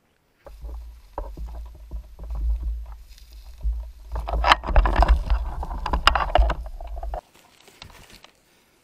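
Low rumble and rustling of a gun-mounted action camera carried through undergrowth, handling noise with a few sharp knocks, loudest around the middle and cutting off suddenly near the end.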